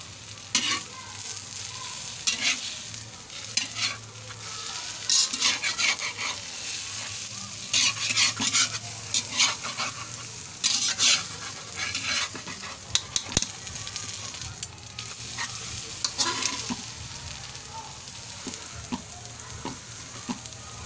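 Eggs with malunggay (moringa) leaves sizzling steadily in hot oil in a metal pan, while a slotted metal spatula scrapes and clinks against the pan in repeated bursts of stirring.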